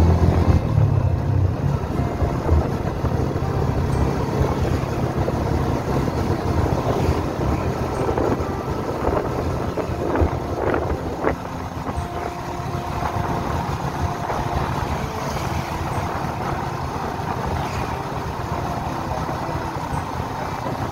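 Yamaha motorcycle engine running steadily as it is ridden along a road, with road and wind noise.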